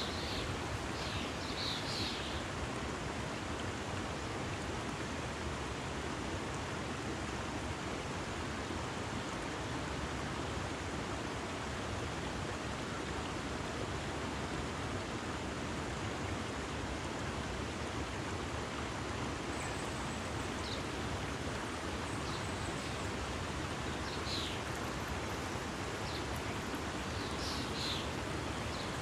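Steady rushing of a small rocky stream flowing over the rocks, with a few brief high chirps near the start and again in the last several seconds.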